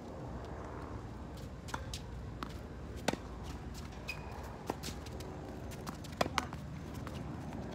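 Tennis rally on a wet hard court: about half a dozen sharp knocks of racket strings striking the ball and the ball bouncing, the loudest about three seconds in and two close together about six seconds in, over a steady low background noise. A brief shoe squeak on the court about four seconds in.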